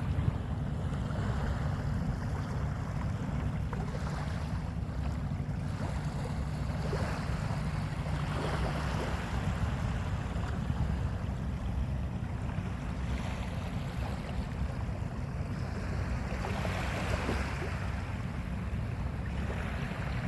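Sea waves breaking and washing up the shore, the surf swelling and fading every few seconds, with wind buffeting the microphone as a steady low rumble.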